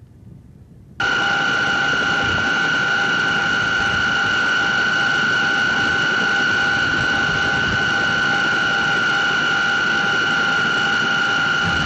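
Helicopter turbine engines running at close range: a loud, steady whine with a strong high tone over a rushing noise. It starts abruptly about a second in.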